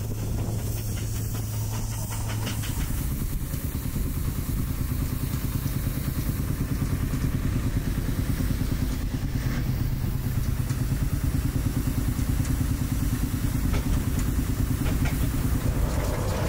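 An engine running steadily with a fast, even beat, its low note shifting slightly about three seconds in.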